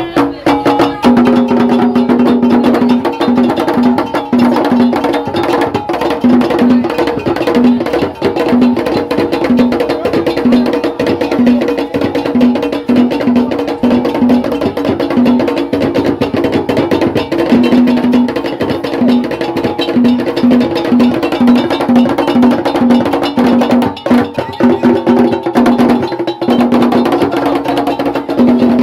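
Traditional Ga ceremonial drumming: dense, fast percussion strikes, with a low pitched note pulsing in a repeating rhythm.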